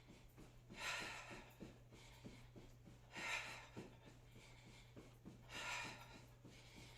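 A woman breathing hard while jogging in place: three loud exhales about every two and a half seconds, with soft, quick, regular footfalls between them.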